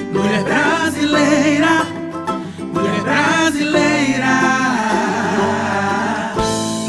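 Band music from the introduction of a Brazilian samba-style song: plucked strings and singing voices over a steady accompaniment.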